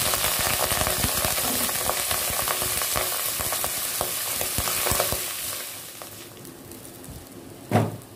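Wet boiled rice sizzling and crackling in hot ghee in an aluminium pot; the sizzle dies down after about five seconds as the ghee cools under the rice. A single loud thump near the end.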